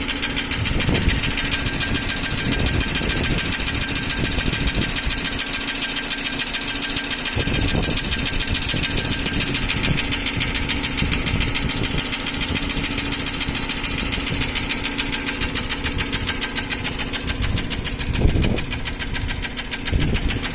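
Nissan Almera N16 petrol engine running steadily with a fast, regular knocking from the top of the engine. The knock comes from intake valves clamped with too little clearance; it appeared after new piston rings and valve stem seals and does not affect pulling power.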